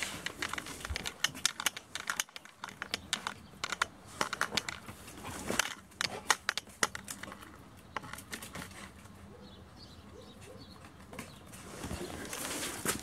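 German wirehaired pointer puppy's claws clicking and scrabbling on a concrete floor as it runs and plays with a toy: a quick, irregular patter of ticks that thins out after about eight seconds, with a short rustle near the end.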